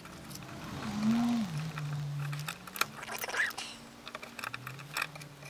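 Light clicks and knocks of a dial test indicator and its stand being handled and repositioned against a sanding disc mounted on an electric motor. Under them a man hums low, the pitch rising and falling about a second in.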